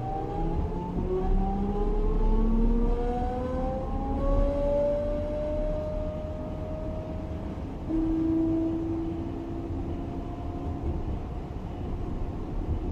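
Class 425 electric multiple unit's traction inverters and motors whining in several tones that climb steadily as the train accelerates, levelling off after about six seconds, with a new steady tone coming in about eight seconds in.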